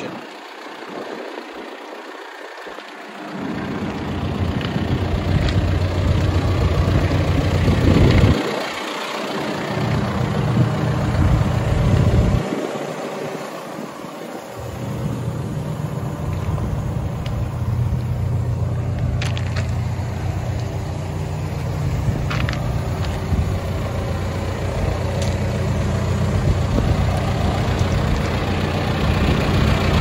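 John Deere 310K backhoe loader's diesel engine idling steadily. The low rumble drops out briefly twice, about nine and thirteen seconds in.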